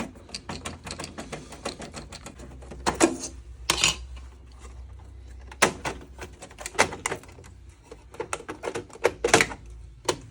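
Rapid plastic clicking and several sharper knocks as a plug-in mechanical programmer is worked loose and pulled out of a combi boiler's fascia, over a low steady hum.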